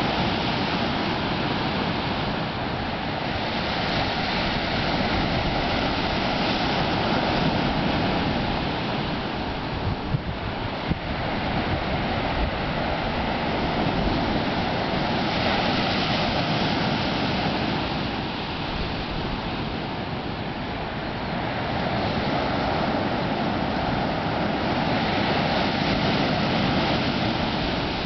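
Small ocean waves breaking and washing up the beach: a steady rush of surf that swells and eases slowly every several seconds.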